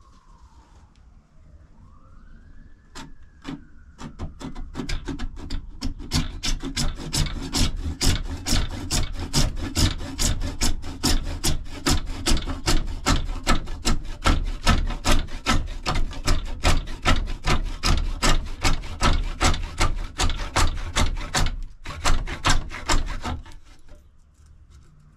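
Handsaw cutting through PVC pipe clamped in a vise, a steady rhythm of quick rasping back-and-forth strokes that builds up a few seconds in, pauses briefly near the end, then runs a few more strokes before stopping.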